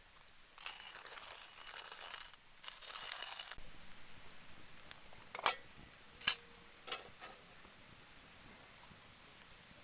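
Crinkling and rustling in a few short stretches, then three sharp clicks or pops about a second apart, with a faint hiss behind.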